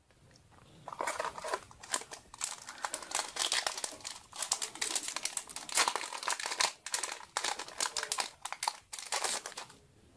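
Foil wrapper of a Yu-Gi-Oh booster pack crinkling as it is handled and torn open, in a dense run of crackles from about a second in until just before the end.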